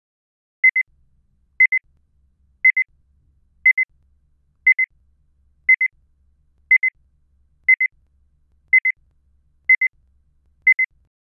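Electronic double beeps at one steady high pitch, one pair each second, eleven times: a timer tone counting the answering time after a question is read.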